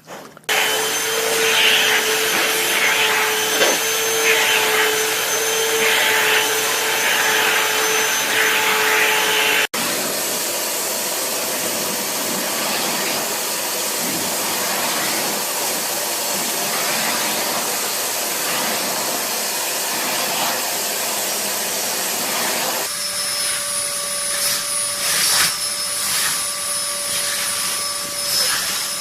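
A steady electric motor running with a rushing-air hiss and a high whine, changing character suddenly about ten seconds in and again about twenty-three seconds in.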